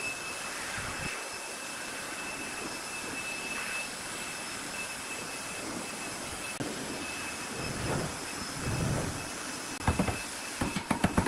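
Steady background noise with a faint high whine. Near the end, a hammer starts knocking on the pine chair's wooden frame with a few sharp blows.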